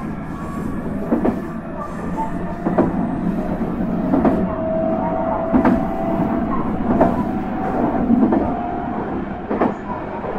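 Running noise inside a JR E127 series electric multiple unit: a steady rumble with a clack from the rail joints every second or so. A thin, steady whine rises slightly about four seconds in and then holds.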